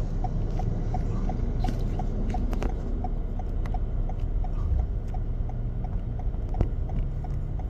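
Car turn-signal indicator clicking steadily, about three clicks a second, over a low steady rumble from an idling car.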